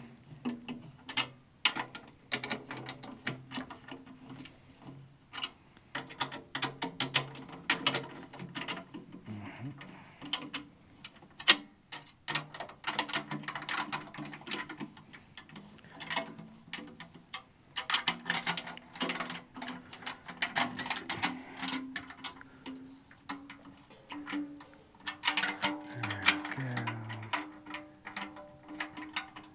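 Snare drum being tuned: a steel-shelled Sonor Signature 14x8 snare with a new Evans HD Dry head gets a run of quick ticks and taps as the tension rods are turned and the head is tapped to check its pitch. Each tap gives a short ringing drum note, and the pitch shifts as the head is tightened.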